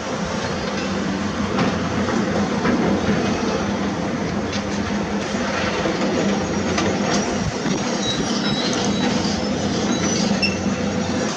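Heavy construction machinery at work: a steady diesel engine drone under dense mechanical grinding, with scattered metallic clanks and short high squeaks in the second half.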